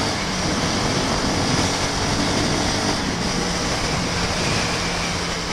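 Steady rush of riding wind and road noise over the helmet microphone, with the Honda CB Twister 250F's single-cylinder engine running at a steady cruise underneath.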